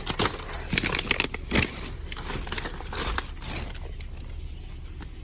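Bags crinkling and rustling as groceries are pulled out and handled. The sound is a busy crackle of quick rustles in the first two seconds, then a fainter rustle.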